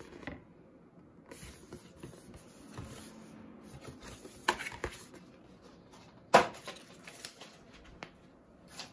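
Cardboard bundle packaging being handled: a paper art insert and a cardboard card box rustled and moved, with scattered taps and clicks. A sharp knock about six and a half seconds in is the loudest sound.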